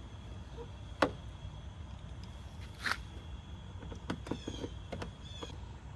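Handwork on a car tail light being fitted: a sharp click about a second in, a brief rasp near three seconds, then a run of small taps and ticks as a hand tool works at the light's mounting.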